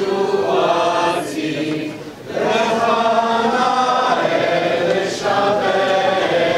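A choir singing in long held notes, in phrases that break briefly about two seconds in and again about five seconds in.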